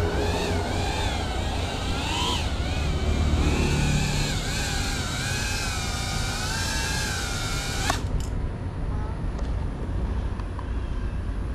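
Small FPV quadcopter's motors whining, the pitch wavering up and down with the stick inputs, over a steady low rumble. About eight seconds in there is a click and the whine cuts off as the motors stop.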